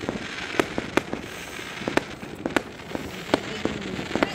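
Fireworks going off: a dozen or so sharp bangs at irregular intervals, sometimes two or three close together, over a continuous crackle from the bursting shells.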